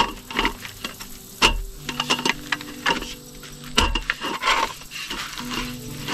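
Camping gear being handled: a run of sharp clicks and knocks with crinkly rustling between them, some louder knocks about a second and a half in and again near four seconds.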